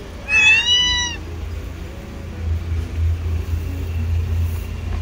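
A domestic cat meows once, a single call about a second long, slightly arching in pitch, shortly after the start. A low rumble follows later on.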